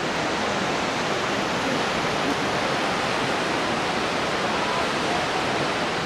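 Steady, even rush of Shōmyō Falls, a 350 m waterfall, with water pouring down the cliff in a continuous roar.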